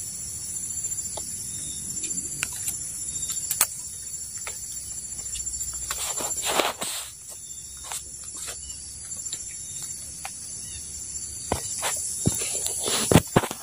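Steady high-pitched chorus of forest insects, with brief rustles and knocks of leaves and branches being handled, the loudest about six and a half seconds in and near the end.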